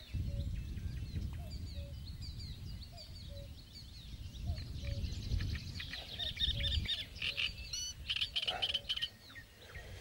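Birds chirping and singing, with a short low call repeating at a steady rhythm about every half to three-quarters of a second, over a low rumble that stops about seven seconds in.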